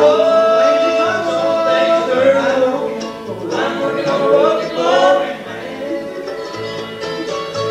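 Live bluegrass band playing a gospel song: acoustic string instruments over an electric bass that keeps a steady pulse.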